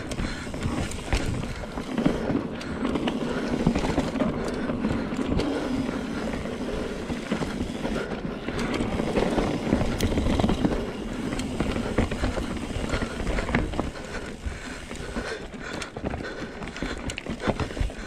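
Mountain bike riding down a dirt trail, heard from a camera mounted on the bike: tyres rolling over the dirt with a steady rumble, and the bike rattling and knocking over bumps.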